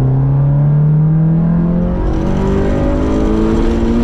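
Turbocharged Mazda Miata four-cylinder engine revving hard through a full-throttle pull, heard from inside the cabin, its pitch rising steadily. The wastegate is propped open and an intercooler pipe is disconnected, so the turbo is spinning without making boost.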